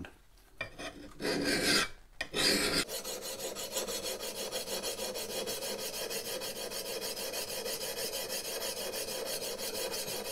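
Single-cut file draw-filing the steel cheek of a vintage Hults Bruk double-bit axe. After a short pause come two separate rasping strokes, then from about three seconds in a quick, even run of back-and-forth rasping strokes.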